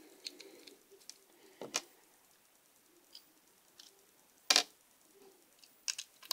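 A few sharp clicks and taps as screws are taken out of a laptop hard drive's metal mounting bracket and the drive is handled. There is a double click a little under two seconds in, the loudest click about four and a half seconds in, and a small cluster near the end.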